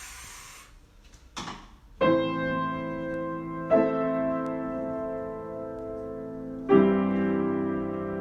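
Piano improvisation opening with three sustained chords, struck about two seconds in, again near four seconds and near seven seconds, each left to ring and fade slowly. A short hiss and a brief rustle come before the first chord.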